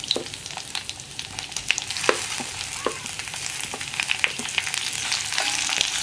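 Sliced onions sizzling as they go into hot coconut oil in a cast-iron kadai, with a spatula scraping and clicking against the pan as they are stirred.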